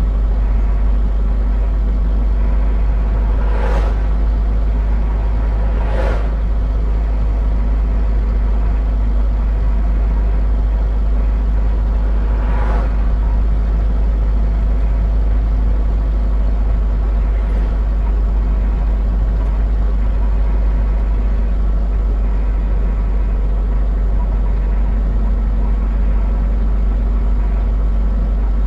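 Steady low engine and road rumble heard inside a vehicle's cabin as it drives along a paved road, with three short bursts of noise about 4, 6 and 13 seconds in.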